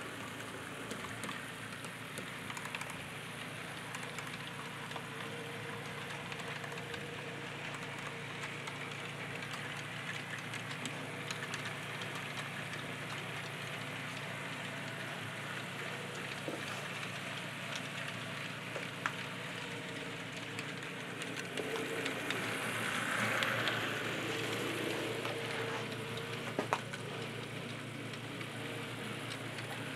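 HO-scale model train with a Bachmann 70-ton diesel switcher rolling along the track: a steady hiss of metal wheels on the rails, a few sharp clicks over rail joints, and a brief swell about two-thirds of the way through. The switcher's motor is barely heard under the rolling noise.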